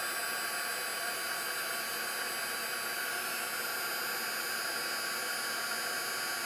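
Craft heat-embossing gun running, its fan blowing an even rushing hiss with a faint steady whine, heating embossing powder on a tag to melt it.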